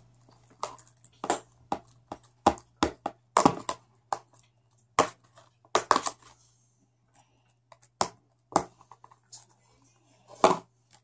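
Homemade fluffy slime (glue, hair conditioner, shaving foam and borax water) being squeezed and pulled by hand, giving irregular wet clicks and sticky pops, several a second in bunches with short pauses. The mix is still too runny and sticky.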